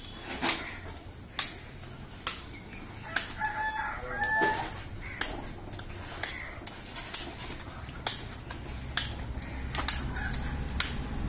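A rooster crows once, about three seconds in, over sharp knocks that repeat about once a second.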